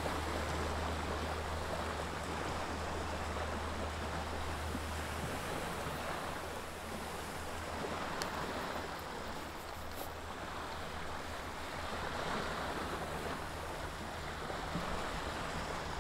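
Waves washing on a shore, a steady noisy surf that swells and eases slowly, with a low wind rumble on the microphone underneath.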